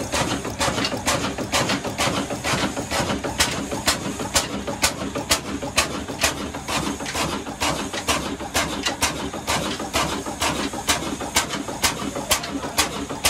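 Old stationary black oil diesel engine running, with a steady, even clatter of sharp mechanical clicks several times a second from its valve gear and fuel-pump linkage.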